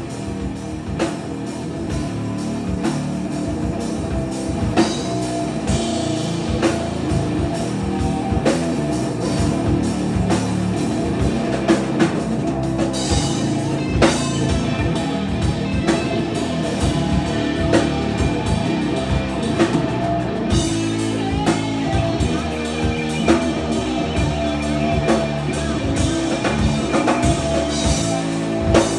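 Live hard rock band playing an instrumental passage: drum kit with frequent cymbal and drum hits over distorted seven-string electric guitar and six-string bass.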